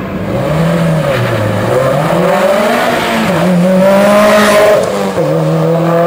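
Subaru Impreza rally car's turbocharged flat-four engine accelerating hard from a standing start, its pitch climbing and dropping back several times as it shifts up through the gears.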